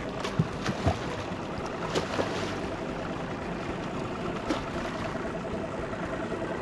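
Water sloshing and splashing at the side of a small fishing boat as a hooked tarpon is brought alongside, with a faint steady hum and a few sharp knocks, three of them in the first second.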